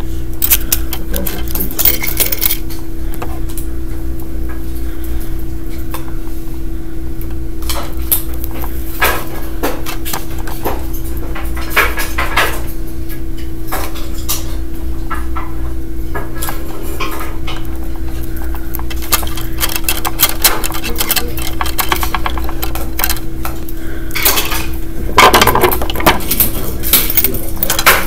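Scattered metallic clicks and clinks of copper wires and a wire stripper knocking against a steel electrical box as wires are bent and stripped, with a louder run of clicks near the end. A steady hum runs underneath.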